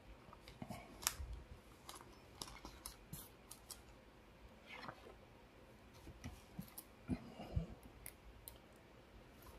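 Faint, irregular clicks and plastic rustles of a trading card being handled and slid into a clear plastic sleeve and card holder.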